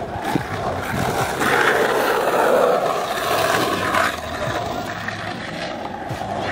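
Skateboard wheels rolling on concrete, a steady rumble that swells about a second and a half in and drops away sharply about four seconds in.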